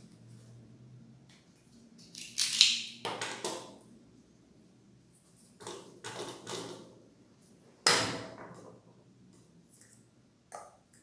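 Plastic diffuser dome of an LED bulb being pried off its base, first with a utility-knife blade worked into the seam and then twisted by hand: scraping and creaking of plastic, with a sharp crack, the loudest sound, about eight seconds in as the dome snaps loose, and a small click near the end.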